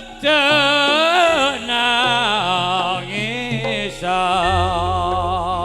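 Traditional East Javanese music accompanying a kuda kencak horse dance: a wavering, ornamented melody of held and sliding notes, with a low steady accompaniment coming in about four seconds in.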